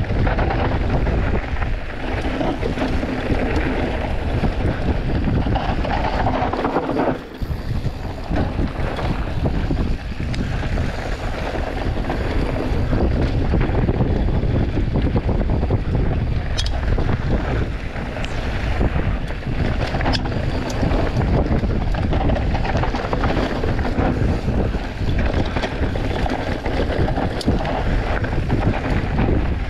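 Wind rushing over the microphone of a mountain bike speeding downhill, mixed with the tyres rolling over hard-packed dirt trail. The rush eases briefly about seven seconds in.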